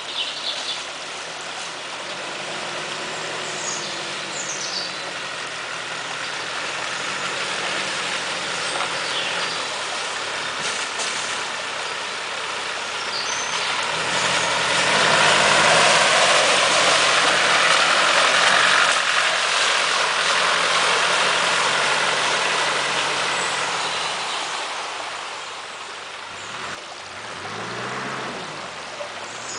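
Off-road 4x4 engine driving through a shallow stream, growing louder as it comes close about halfway through, with water splashing and churning under the wheels, then fading away.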